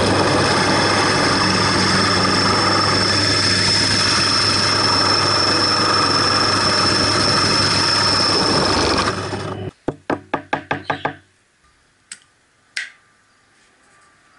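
Bench drill press running, its motor humming with a high whine, as a twist bit bores through a wooden block. About nine seconds in the motor stops and there is a quick run of ticks, then two light knocks.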